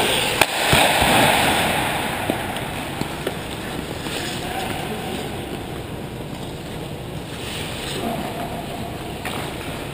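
Ice hockey play around the net: skates scraping the ice and sticks clacking, with a sharp knock about half a second in. The clatter is loudest over the first two seconds, then eases to a steadier rink noise.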